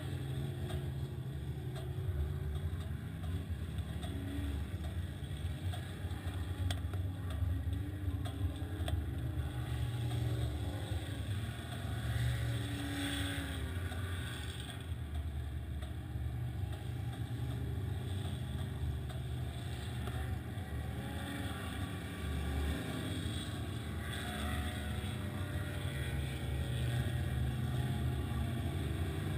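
Side-by-side UTV's engine running steadily under way, heard from the driver's seat, its pitch wavering slightly with the throttle.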